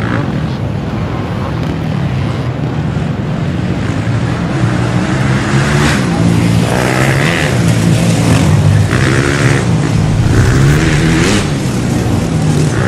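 Several dirt bike engines revving hard, pitch repeatedly rising and falling, as the bikes are ridden up a rocky climb.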